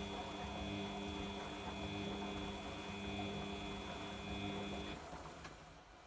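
Samsung front-loading washing machine's drum motor running with a steady hum and whine as the overloaded drum tumbles the wash, then cutting out about five seconds in. A faint click follows just after.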